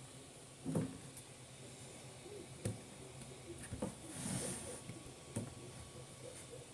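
A few light knocks and clicks spread out in time, like objects being handled, with a brief hiss about four seconds in, over a faint low hum.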